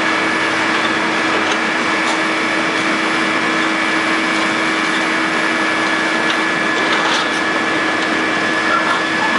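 Caterpillar 330C L excavator's diesel engine running hard with a steady hydraulic whine as its crusher jaws bite into a concrete bridge footing, with a few faint cracks of breaking concrete.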